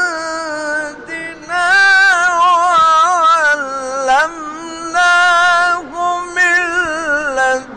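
A male Qur'an reciter chanting a verse in long, ornamented held notes with a wavering pitch. The notes come in several phrases broken by short pauses for breath.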